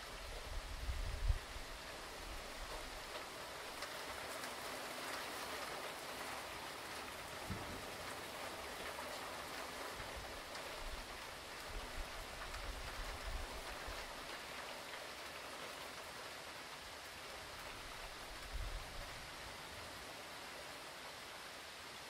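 Hurricane rain falling steadily as an even hiss, with a few brief low rumbles now and then.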